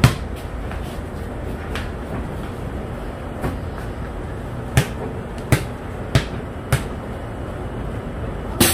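A knife knocking against a chopping board while a chayote is cut, about eight sharp knocks at irregular intervals over a steady low background noise.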